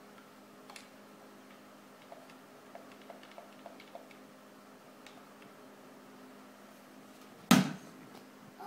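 Faint clicks and taps of a plastic turtle night light being handled, over a low steady hum, then one loud thump near the end.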